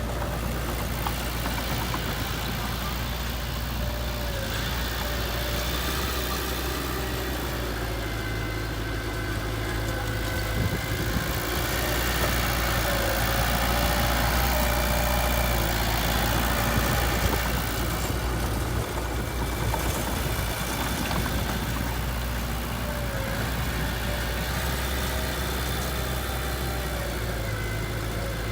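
Heavy machine's diesel engine running steadily at low revs, getting a little louder for a few seconds in the middle before settling back.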